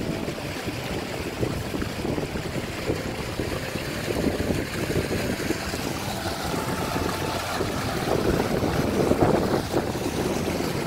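Shallow stream running over rocks, a steady rushing water sound, with wind noise on the microphone.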